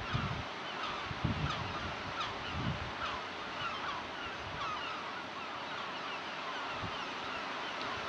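Many gulls calling over and over, short falling cries overlapping one another, over a steady hiss of surf and wind. A few low rumbles of wind on the microphone come in the first three seconds.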